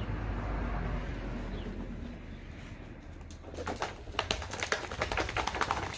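Hands scrubbing soapy lather into a wet dog's wiry coat, a steady rubbing rush. After about three and a half seconds it gives way to a quick run of clicks and rustles.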